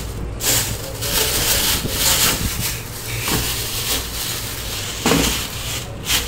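Rustling and handling noise as things are moved about on a plastic tray, over a steady low hum.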